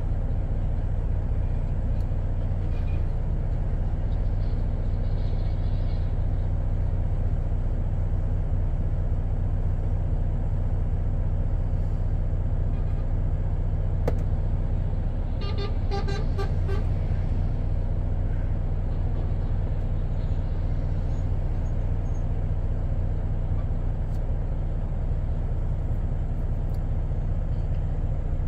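Steady low rumble of a vehicle's idling engine heard from inside the cab. About halfway through, a horn sounds a quick series of four or five short toots.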